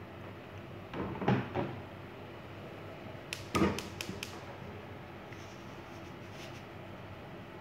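Kitchen knocks and clicks: two or three dull knocks about a second in, then a quick run of sharp clicks with a loud knock a little past the middle. Underneath is a steady low hiss from a pot of water heating on a gas stove.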